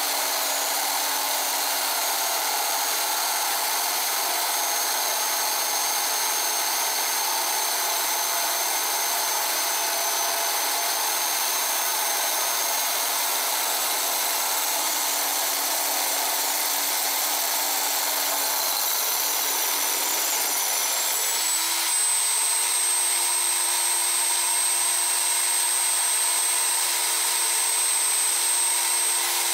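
Bench drill press running a tubular bit that grinds a hole through a glass bottle: a steady gritty grinding over the motor's hum and a high whine. About two-thirds of the way through, the motor's hum and whine step up in pitch and hold there.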